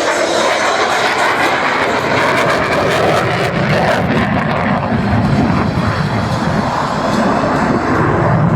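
F-16 Fighting Falcon jet engine noise from a low pass, loud and steady, with a faint falling pitch in the first seconds. The high hiss thins near the end while the deeper low sound grows.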